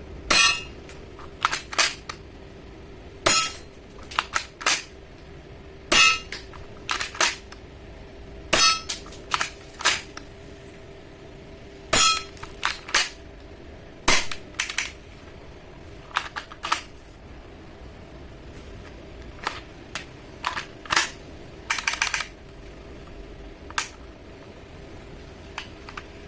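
Tokyo Marui Mk23 spring-powered airsoft pistol firing: about a dozen sharp snapping shots, irregularly spaced a second or more apart, with lighter clicks between them.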